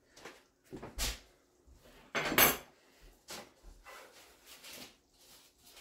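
Kitchen handling sounds from bread and utensils being moved across a counter and onto a parchment-lined tray: a few light knocks, with a louder clatter about two seconds in.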